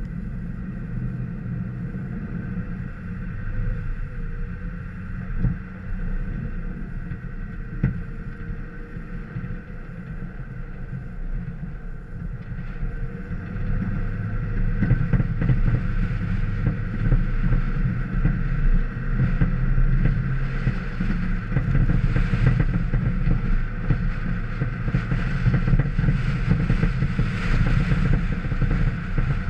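A vehicle's engine running steadily, with tyre and road noise, as it drives over the snow-covered race track. Two short knocks come a few seconds in, and the sound gets louder about halfway through as the vehicle picks up speed.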